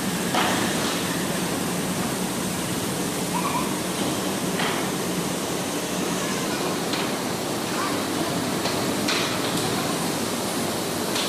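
Steady, even noise of granite-processing machinery running in a factory hall, with a constant low hum under it and a few short knocks scattered through.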